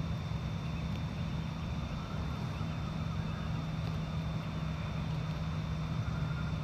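Steady low mechanical hum over an even rushing noise, unchanging throughout, with a faint high steady whine above it.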